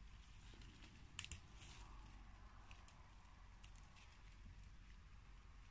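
Faint, crisp snaps of young Chinese kale (kai-lan) stems being pinched off by hand: a sharp double snap about a second in, then a few lighter clicks.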